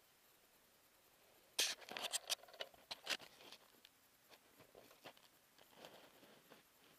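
Handling noise from a small Contour action camera being moved over model railroad scenery: a cluster of quick scraping clicks and rustles from about one and a half to three and a half seconds in, then faint scattered ticks.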